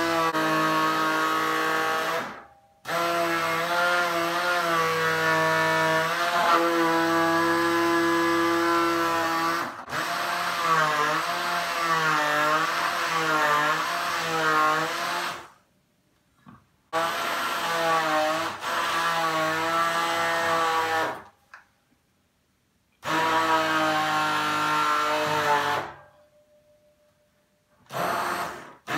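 Electric immersion hand blender running in a tall beaker of parsley, apple and ginger in liquid, its motor whine wavering in pitch as the blade meets the herbs. It is switched off and back on four times, with short pauses between longer runs.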